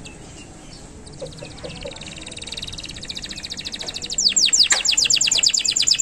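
Domestic canary singing a long rolling song: fast trills of rapid repeated high notes that grow steadily louder, then, about four seconds in, a loud run of quick, sharply falling whistled notes, about ten a second.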